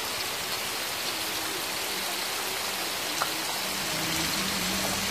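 Small fish frying in oil in a wok on a portable gas stove: a steady, even sizzle. One light tap about three seconds in.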